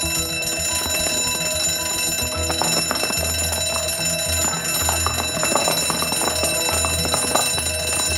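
Warship's action-stations alarm: an electric alarm bell ringing continuously and steadily, calling the crew to action stations. A low, uneven rumble sits beneath it from about two seconds in.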